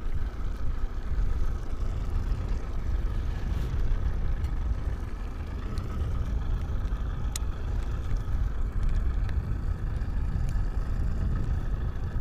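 Steady low rumble aboard a small fishing boat on choppy water, with a faint steady high whine running through it and a few light clicks.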